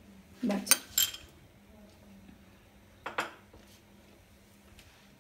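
Metal spoon clinking against steel cookware with a ringing tone: about three quick clinks half a second to a second in, then two more about three seconds in.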